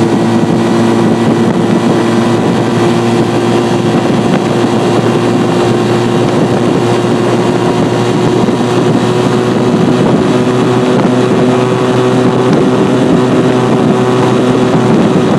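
1969 Honda CB175 K3's air-cooled parallel-twin engine running under way at a fairly steady pitch, which rises slightly in the second half.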